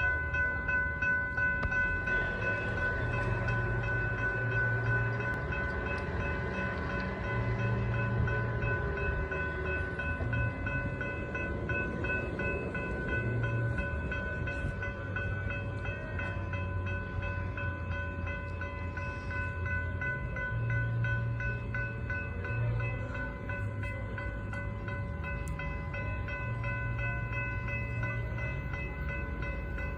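Amtrak passenger diesel locomotive running as the train departs: a deep engine rumble that swells and eases, with a steady high whine held over it.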